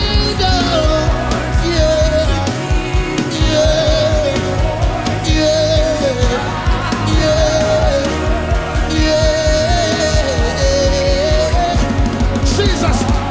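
Live worship band music with a steady beat and bass under a wavering lead melody in short repeated phrases.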